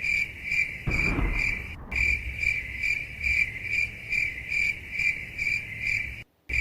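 Crickets chirping in a steady, even rhythm of about two to three chirps a second, with a brief low thud about a second in.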